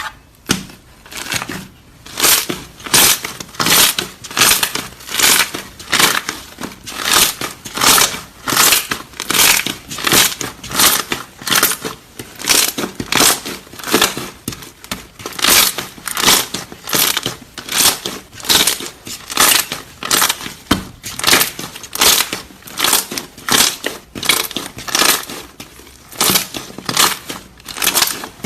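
Hands pressing and kneading slime, with a crackling crunch at each press, about twice a second.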